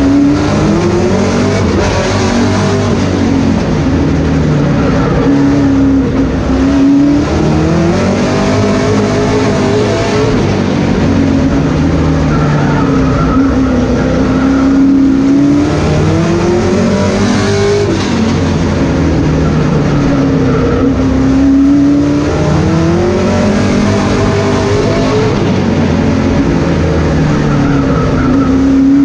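Sportsman stock car's engine at racing speed, heard from inside the cockpit, its revs climbing and falling again in a repeating cycle about every four to five seconds as the car accelerates down each straight and lifts for each turn, lap after lap.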